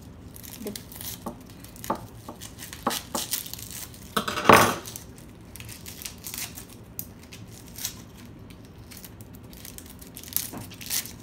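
Onion being peeled with a kitchen knife over a wooden cutting board: scattered light clicks, crinkles of dry skin and small knife taps, with one louder scrape about four and a half seconds in.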